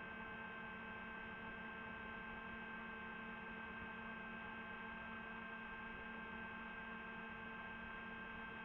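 DJI FPV drone's electric motors and propellers spinning steadily at idle, giving a faint, even whine with several tones held at one pitch.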